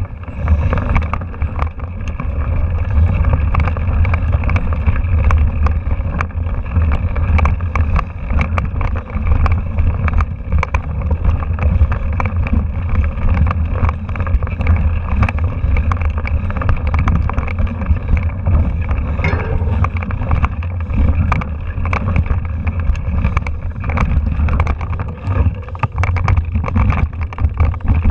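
Mountain bike ridden over a rocky trail, heard through a handlebar-mounted camera: a steady low rumble of wind and vibration on the microphone, with constant irregular rattling and clatter from the bike jolting over rocks.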